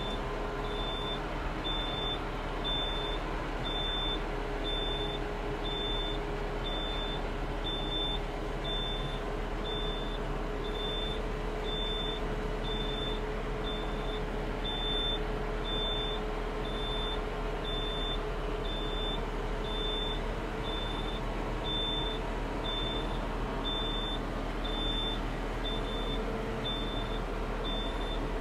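Compact tractor backing slowly across a timber bridge, its engine running steadily while its reverse warning alarm sounds an evenly spaced high beep a little faster than once a second.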